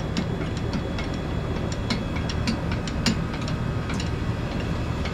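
Irregular light metal clicks and clinks, several a second, from an engine hoist's chain and gear as a 350 crate engine is lowered into place, over a steady low rumble.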